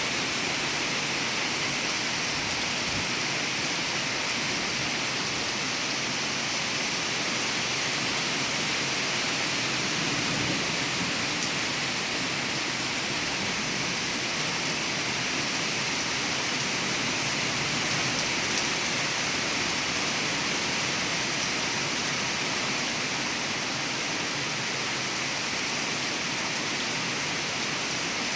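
Steady rain falling, an even hiss of drops with no let-up.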